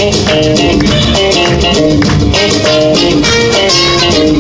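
Lively Latin-style music with plucked guitar over a steady beat, loud and continuous.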